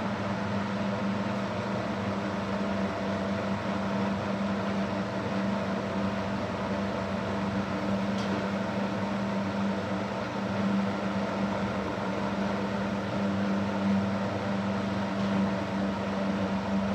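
Super Electric 14-inch box fan, model 1475, running steadily on high speed: an even motor hum with a strong low tone and the rush of the blades.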